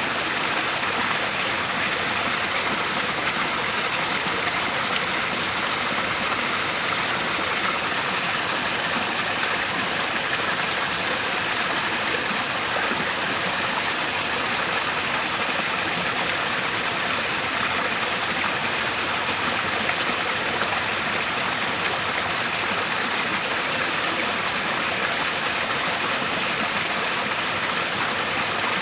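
Waterfall: a steady, unbroken rush of falling water with no changes or separate splashes.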